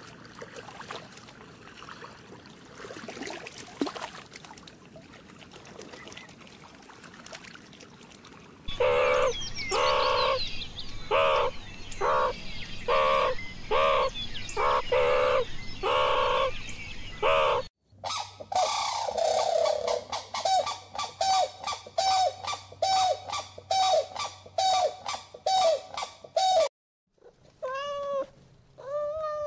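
Faint background ambience, then a meerkat calling over and over, about one and a half calls a second. After a short break comes a faster run of short, high calls from another animal, two to three a second. Near the end a cat meows with a rise-and-fall pitch.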